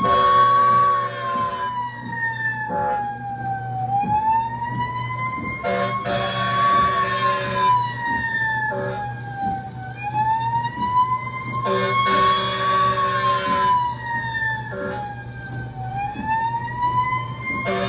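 The coin-operated Snoopy fire truck kiddie ride plays an electronic siren through its speaker. It wails slowly up and down, one rise and fall about every six seconds, with a harsher buzzing blast near the top of each rise, over a steady low hum.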